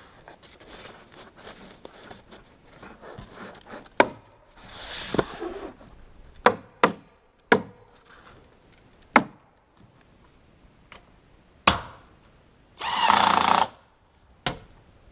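Building work on wood: a series of sharp knocks and two short bursts of a power tool, the second burst, near the end, the loudest.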